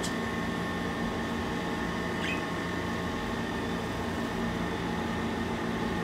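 Steady hum of an air conditioner, made up of several fixed tones. A single faint bird chirp comes about two seconds in.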